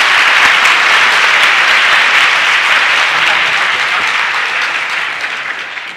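Audience applauding, steady and then slowly dying down near the end.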